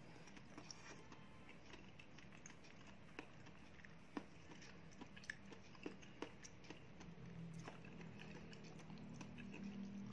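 Faint chewing of soft dragon fruit, with scattered small mouth clicks, over a steady low hum that grows a little louder in the second half.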